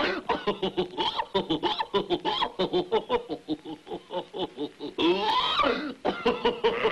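Cartoon hyena laughing: a rapid cackle of short pitched bursts, about four or five a second. About five seconds in it gives way to a louder stretch of sliding pitches.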